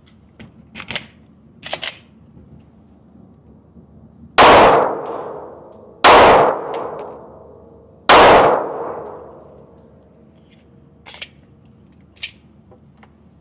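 Three handgun shots, spaced about one and a half to two seconds apart, each with a long echoing tail. Fainter sharp clicks come before and after them.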